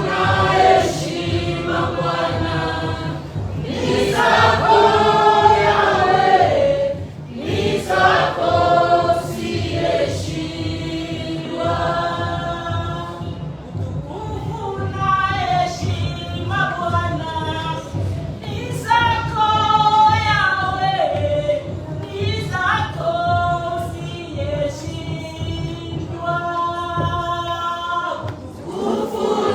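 Choir singing a gospel worship song, several voices together, over a steady low backing.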